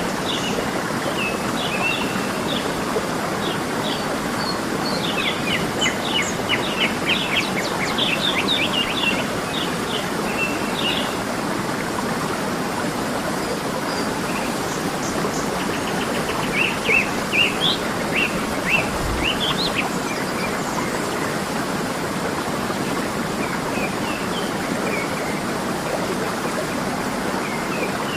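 Waterfall rushing steadily, with songbirds chirping over it in short flurries of quick calls, busiest in two spells about a third and two-thirds of the way through.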